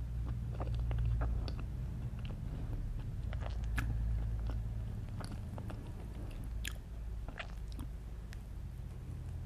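A person chewing and eating chocolate cake with mocha frosting: irregular small mouth clicks and smacks, over a steady low hum.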